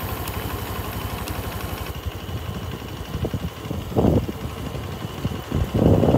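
Small motorcycle engine running at low speed, a steady low chugging of closely spaced firing pulses. A louder rumbling swell comes about four seconds in and again near the end.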